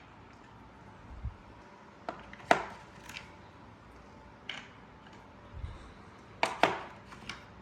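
Hard objects being handled: a string of separate sharp knocks and clacks, the loudest about two and a half seconds in and a quick pair near the end, with two dull low thumps between them.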